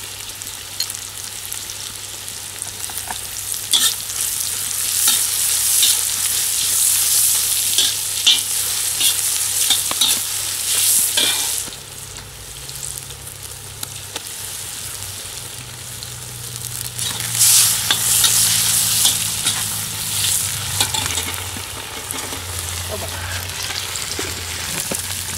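Food stir-frying in a hot wok: a steady sizzle with a metal skimmer repeatedly scraping and tossing against the wok. The sizzle drops off about twelve seconds in and comes back louder a few seconds later.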